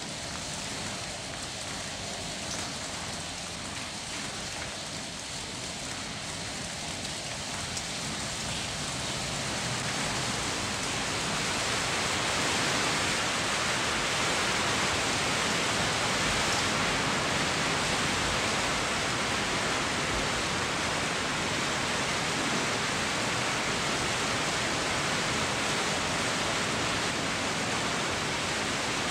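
A steady rushing noise of water, growing louder over about the first twelve seconds and then holding level.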